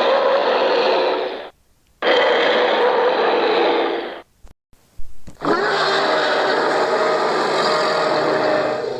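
Custom alien creature sound effect: three long, raspy growls or roars, separated by short gaps, with a few brief clicks before the third and longest.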